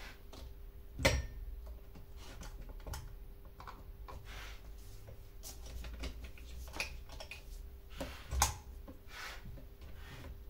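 Scattered clicks and knocks of chainsaw parts being handled and fitted by hand, with two sharper knocks about a second in and about eight seconds in; a faint steady hum underneath.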